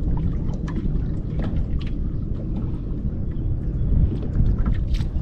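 Steady low rumble of wind buffeting the microphone aboard a small fishing boat, with scattered light ticks and taps throughout.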